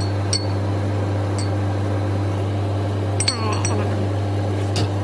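Steady low hum of a supermarket refrigerated display case's machinery, with a few light clicks and clinks as glass bottles and cans on its wire shelf are handled.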